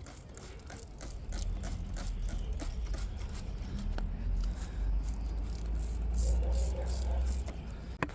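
Soft paintbrush scrubbing degreaser into old carpet in quick, scratchy strokes, over a low rumble that starts about a second in and fades near the end.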